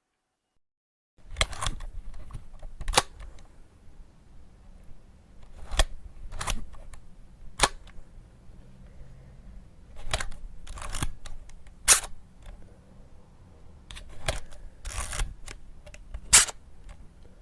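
Camera shutter sounds: a series of sharp shutter clicks at irregular intervals, some single and some in quick pairs, over a faint low hum. They begin about a second in, after silence.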